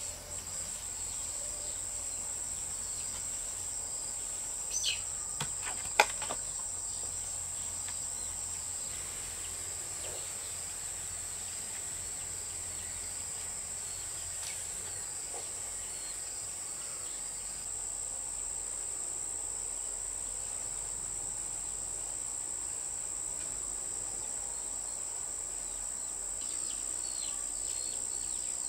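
Insects chirring in a steady, high-pitched drone, with a sharp click about six seconds in.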